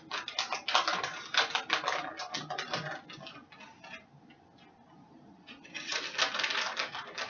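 Plastic packaging of shredded cheese crinkling as it is handled: rapid crackling for the first few seconds, a quieter spell, then more crackling about six seconds in.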